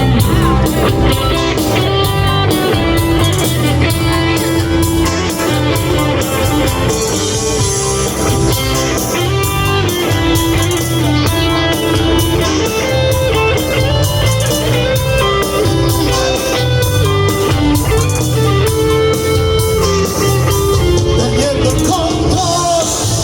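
Rock band playing live in an instrumental stretch: electric guitar to the fore over bass and a steady drum beat.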